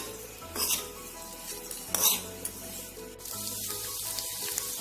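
A spoon stirring and scraping through egg masala in a frying pan, two strokes about a second and a half apart. A steady sizzle of frying comes in about three seconds in.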